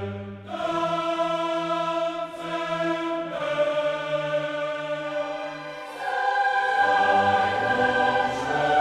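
Choral music: a choir singing slow, long-held chords that change every few seconds.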